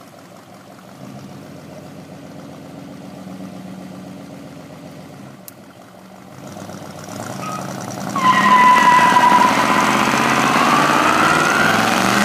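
1965 Ford Galaxie 500's 390 V8 idling, then revving up about seven seconds in; about a second later the rear tyres break loose in a burnout and screech loudly over the engine to the end.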